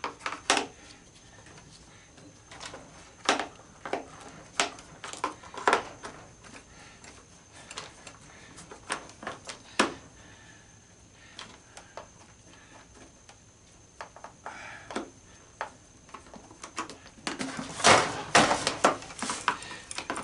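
Scattered clicks and knocks of hand tools working at bolts and screws in the body of a horse figure being taken apart for scrap, with a louder burst of clatter near the end.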